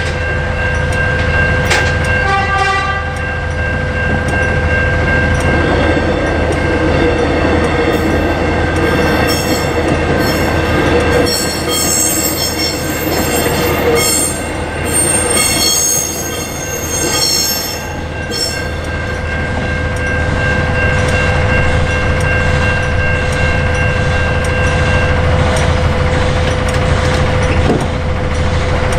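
An electric suburban train sounds short horn blasts in the first few seconds, then passes over the level crossing, its wheels squealing high and steady for about nine seconds as it goes by. Level crossing bells ring steadily behind it and stop near the end, as the boom gates start to rise.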